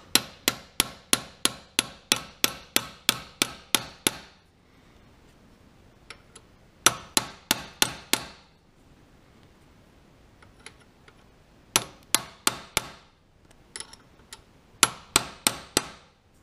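Hammer tapping a roll pin punch, driving a steel roll pin through the drive coupling of a milling machine's knee power feed. Quick runs of sharp metal-on-metal strikes, about four a second: a long run of about fifteen at the start, then three shorter runs after pauses.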